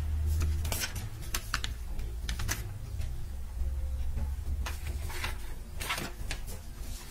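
Irregular light clicks and paper rustles as the backing paper of edible silver leaf is pressed down and peeled off, over a steady low hum.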